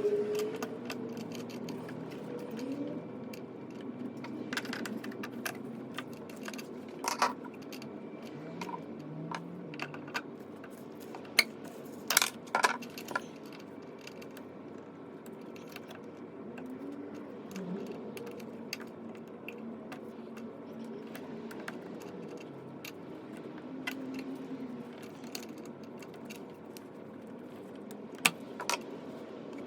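Scattered sharp metallic clicks and clinks of small hardware and tools being handled, a cluster of them about halfway through and one more near the end, over a steady low background.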